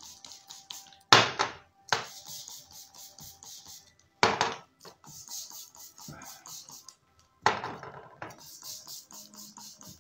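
Background music with a steady ticking beat, and four loud knocks of glass jars being set down on a hard tabletop, about one, two, four and seven and a half seconds in.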